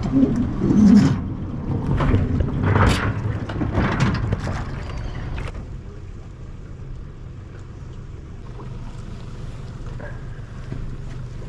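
Small aluminium boat coming off its trailer at a boat ramp: irregular knocks, scraping and splashing for about the first five seconds, then a quieter stretch with a steady low hum.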